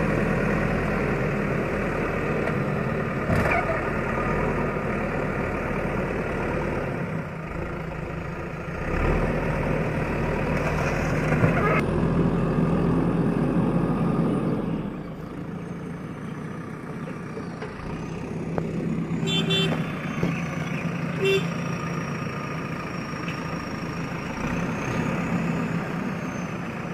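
JCB backhoe loader's diesel engine running steadily, louder through the first half and dropping to a lower level about halfway through, with a few short knocks.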